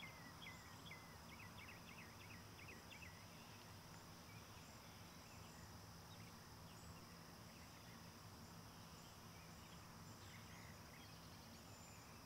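Near silence: faint outdoor ambience. A bird chirps in quick repeated notes for the first three seconds over a steady high insect drone.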